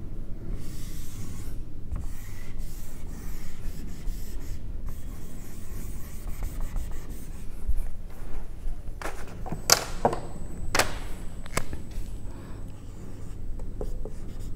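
Whiteboard duster scrubbing marker writing off a whiteboard, a steady rubbing. Several sharp clicks come about nine to twelve seconds in.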